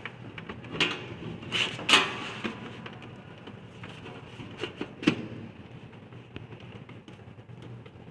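Computer parts being handled and fitted during reassembly of a desktop system unit: a few sharp clicks and knocks, the loudest about two seconds in and another about five seconds in, over a steady low background hum.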